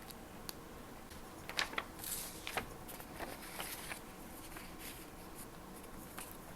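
Paper and small stationery items being handled: rustling and light clicks, busiest from about one and a half to four seconds in.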